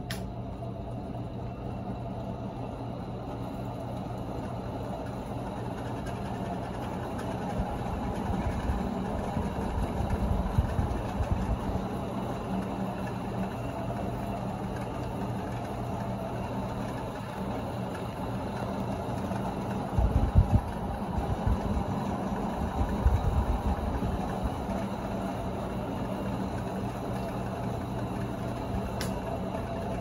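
Leslie Locke Play It Again Sam ceiling fan running at speed: a steady motor hum with the whoosh of the spinning blades. A low rumble swells twice, about a third of the way in and again about two-thirds in.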